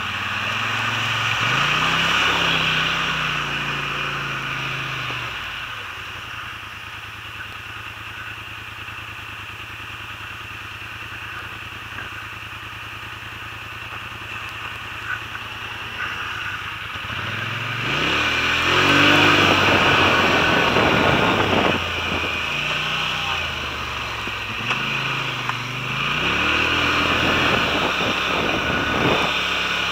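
ATV engine revving up and down as it rides, settling to a steady idle from about six seconds in, then revving hard again from about eighteen seconds with rising and falling pitch.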